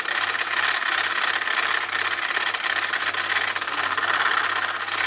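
Toyota 5A-FE 1.5-litre four-cylinder petrol engine running with a loud, steady clattering rattle from the timing belt: the belt is flapping, and the owner suspects a loose timing-belt tensioner pulley that has let the belt jump a tooth.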